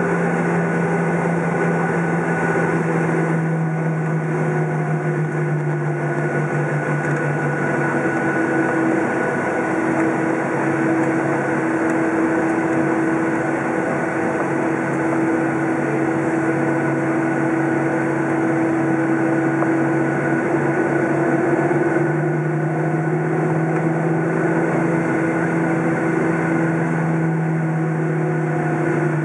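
Cabin noise of a Boeing 737 taxiing, heard from a seat over the wing: the jet engines run at low taxi power with a steady hum whose pitch shifts slightly a few times.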